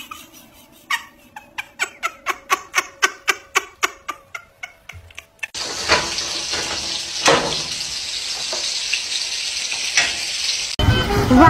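Soldiers marching in step, their boots striking in unison about three times a second. Then hamburger patties sizzle steadily in a frying pan, with a couple of knocks and scrapes from a spatula.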